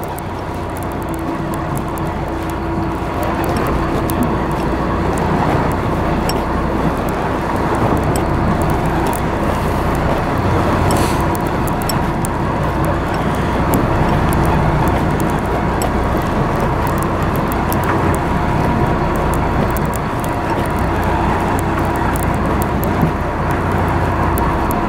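Fishing boat's engine running steadily, with wind and sea wash over the deck, rising a little in level over the first few seconds.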